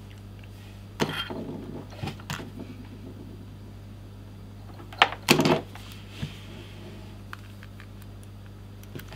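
Hands handling computer cables and plastic connectors: a few rustles and clicks about a second in and around two seconds, then a louder cluster of knocks and clicks a little past five seconds, over a steady low hum.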